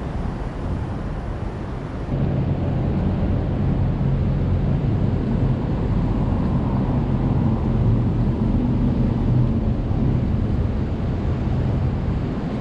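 City street ambience: a steady low rumble of traffic with wind buffeting the microphone. The rumble steps up about two seconds in and then holds even.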